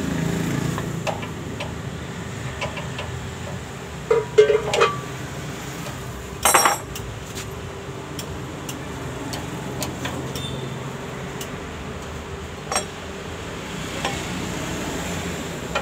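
Metal tools clinking and knocking on the 186F diesel engine's injector fittings as the injector is loosened for removal: a short cluster of clinks about four seconds in, another sharp one a couple of seconds later, and one more near the end, over a steady low background hum.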